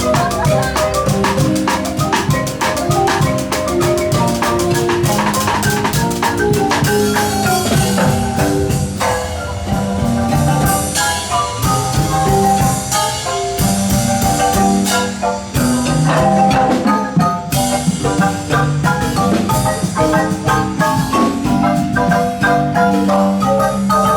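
Guatemalan marimba ensemble playing a lively piece: fast runs of mallet strikes on the wooden bars over a steady lower bass line.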